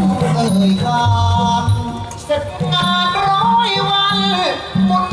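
Live likay band music: a pulsing bass line under a held melody that slides down near the end.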